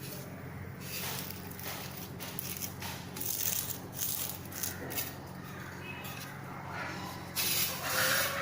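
Rice flakes (aval) crackling and rustling as they dry-roast in a heavy-bottomed pan, in many small irregular pops that grow louder near the end. This crackle is the sign that the flakes are well roasted.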